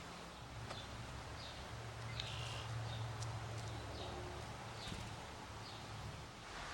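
Small backyard birds giving short, high chirps about once a second, over a steady rushing background and a low rumble.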